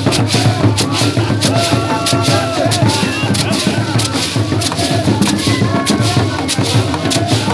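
A large Dagomba drum ensemble playing: many big hand-held drums beaten together in a fast, driving rhythm, with sharp strokes about three a second over a heavy low boom and a rattling buzz.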